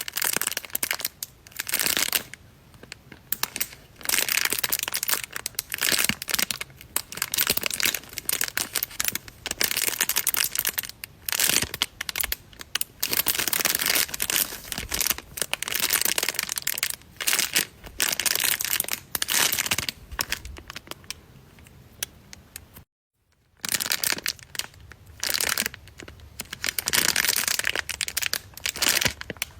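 Squishy toy being squeezed and handled, crinkling in repeated irregular bursts. The sound drops out briefly about 23 seconds in.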